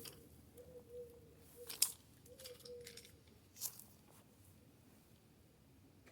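Faint clicks and scrapes of hands and tools at work, the sharpest click about two seconds in. A faint, wavering thin whine comes in three short stretches during the first three seconds.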